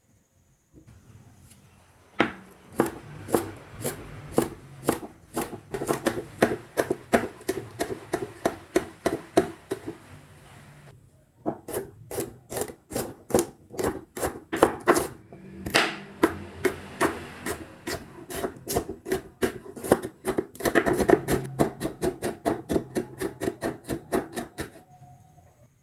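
Food being cut or worked by hand on a wooden board: even, rhythmic strokes about two to three a second with a rubbing scrape between them, in two long runs broken by a short pause about a third of the way through.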